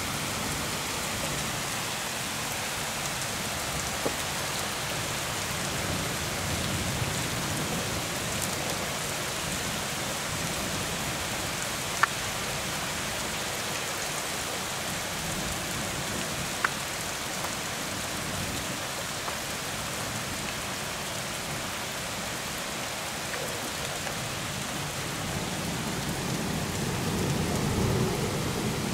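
Heavy thunderstorm rain falling steadily, a dense even hiss with a few single sharp ticks. A low rumble swells near the end.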